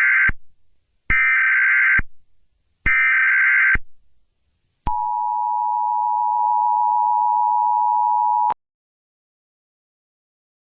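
Emergency Alert System header: three bursts of SAME data tones, about a second each, the first already under way. They are followed by the EAS two-tone attention signal, a steady dual tone held for about three and a half seconds that cuts off abruptly.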